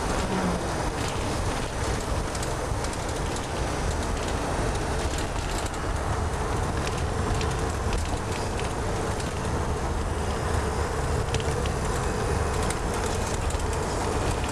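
Steady engine and road noise heard from inside a moving shuttle bus.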